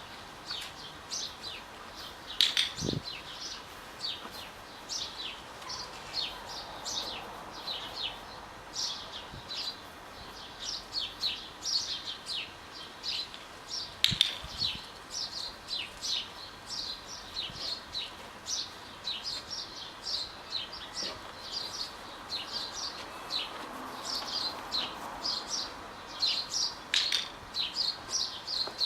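Small birds chirping constantly, several short high calls a second, with a few sharp clicks, the loudest about fourteen seconds in.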